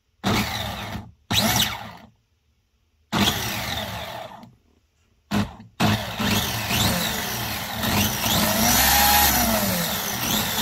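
Mabuchi 540 brushed electric motor of a Tamiya Benetton B195 RC car spinning the drivetrain and wheels off the ground, in four short throttle bursts and then running continuously from about six seconds in, its whine rising and falling in pitch as the throttle is worked. The rusty old stock motor runs freely and surprisingly fast.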